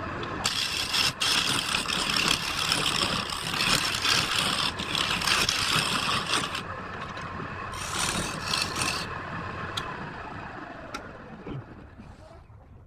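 Wood lathe running, with a turning tool cutting the spinning wood in two spells of loud hissing, the longer one first. Near the end the lathe motor winds down, falling in pitch as it fades.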